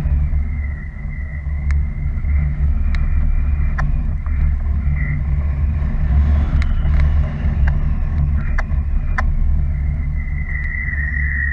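Wind buffeting an action camera's microphone in paragliding flight: a steady, loud low rumble, with scattered sharp clicks and a thin high tone that grows louder near the end.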